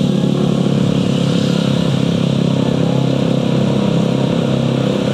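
Motorcycle engine running at a steady pace while riding, over a steady rush of wind and road noise.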